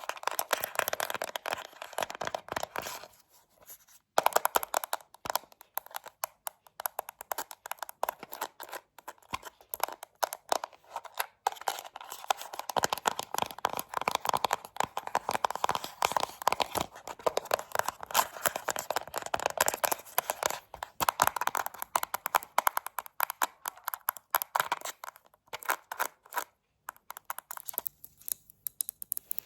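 Rapid, light tapping and knocking close to the microphone, many quick taps a second, with short pauses about three seconds in and again near the end.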